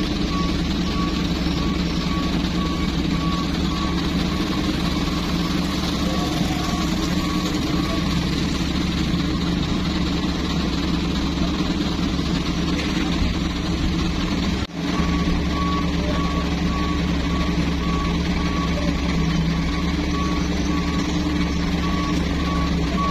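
Heavy Mitsubishi Fuso truck's diesel engine running steadily while the loaded truck works through deep mud, with a regular electronic beeping over it that stops for a stretch in the middle. The sound drops out for a moment a little past halfway.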